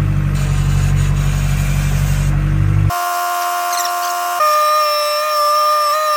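Skid steer engine running steadily, then cut off abruptly by horn blasts: a short held blast followed by a longer, slightly wavering one.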